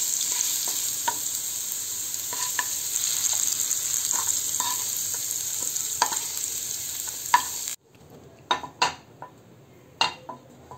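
Diced potatoes frying in hot mustard oil in a nonstick frying pan: a steady sizzle, with a wooden spatula scraping and tapping as the half-fried potatoes are stirred and lifted out. The sizzle cuts off suddenly near the end, leaving a few light knocks.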